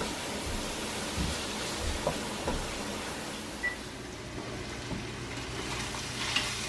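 Ground beef sizzling in a frying pan: a steady hiss, with a few soft knocks from the spatula in the first couple of seconds.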